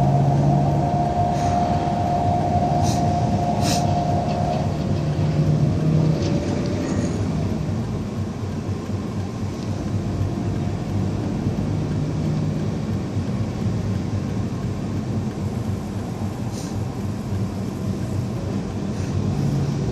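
Engine and road noise heard from inside a moving vehicle: a steady rumble with an engine hum that is strongest in the first six seconds, and a few faint rattles.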